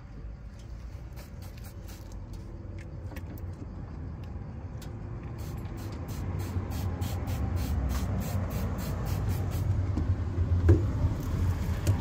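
Trigger spray bottle squirted over and over: short hissing squirts, scattered at first, then fast and even at about four a second through the middle. Under them a passing car's low engine and tyre rumble grows louder toward the end.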